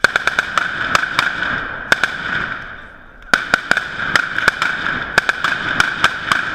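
Kalashnikov-type assault rifles firing at close range, many shots in quick succession. The firing stops for about a second near the middle, then picks up again just as densely.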